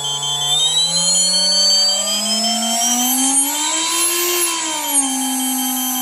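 Electric motor of a Joysway US-1 RC speedboat spinning up out of the water, its whine rising in pitch as the throttle opens, peaking about four seconds in, then dropping back to a steady, lower whine near the end.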